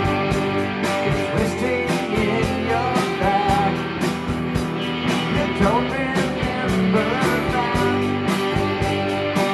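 Live rock band playing: electric guitars over a steady drum beat, with a lead guitar line sliding up and down in pitch a few times.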